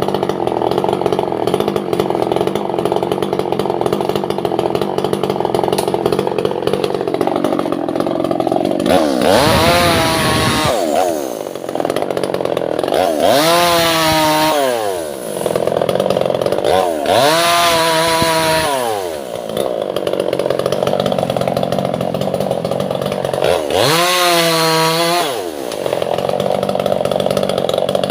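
Two-stroke chainsaw cutting albasia wood, running steadily under load; four times the engine speeds up sharply in a rising whine and then drops back.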